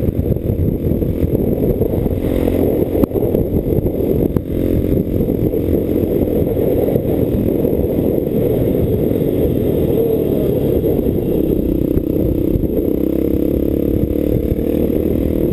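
A motor vehicle on the move: engine running under a heavy, steady low rumble of wind and road noise, its pitch shifting slightly in the last few seconds.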